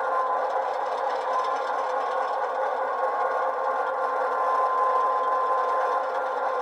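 Loksound v5 sound decoder playing a GP9 diesel locomotive engine running steadily, through two tiny sugar cube speakers in an HO-scale Walthers GP9 model: a thin, bass-less engine drone with a steady whine on top.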